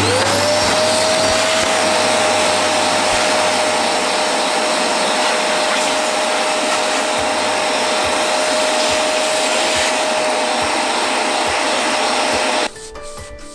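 A small high-speed electric motor runs steadily with a loud rush of air and a single steady whine that climbs to pitch as it spins up at the start. It switches off abruptly about a second before the end.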